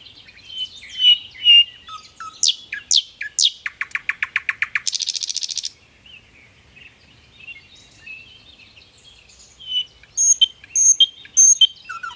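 A songbird singing a varied song. It gives whistled notes and quick downward-sweeping calls, then a fast rattling trill of about ten notes a second and a short buzzy trill around the middle. After softer chattering, a series of sharp, evenly repeated notes comes near the end.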